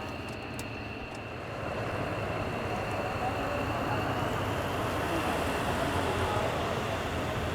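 F-15DJ Eagle's twin turbofan engines running: a steady high whine under a broad jet rush that swells about two seconds in and then holds louder.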